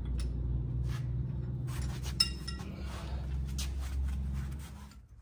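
A single sharp metallic clink about two seconds in, metal striking metal and ringing briefly, over a steady low hum.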